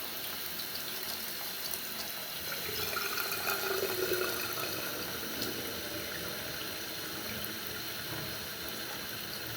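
Water running steadily into a newly installed dual-flush toilet's tank through its fill valve as the tank fills, a little louder around the middle.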